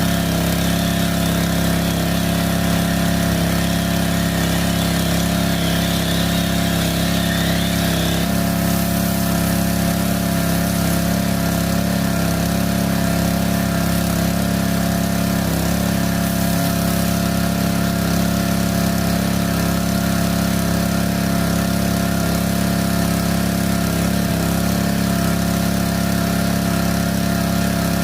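Engine of a pressure washer running steadily as it powers the wand and foam cannon, with a higher hiss that stops about eight seconds in.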